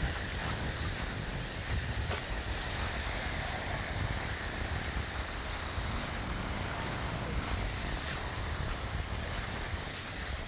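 Wind buffeting the phone's microphone, an uneven low rumble over a steady rushing hiss.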